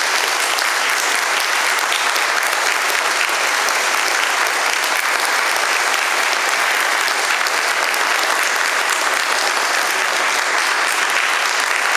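An audience applauding: a steady, unbroken round of clapping from many people.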